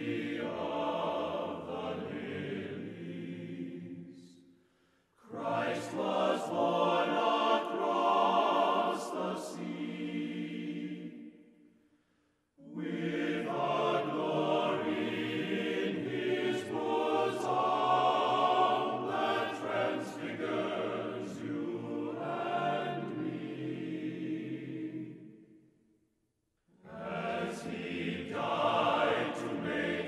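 Background music: a choir singing in long phrases, broken by short pauses.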